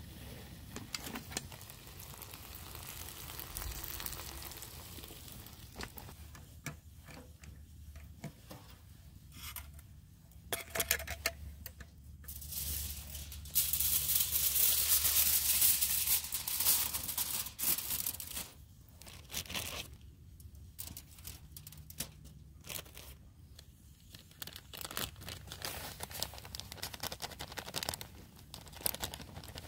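Aluminium foil crinkling and tearing, loudest in a long rustling stretch about halfway through, among scattered clicks and knocks of handling.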